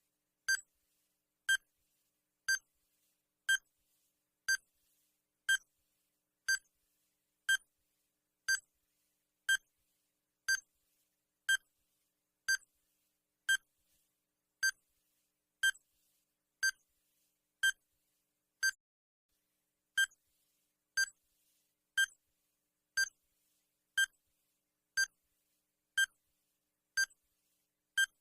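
Digital countdown timer sound effect: a short, high electronic beep once every second, ticking off the seconds.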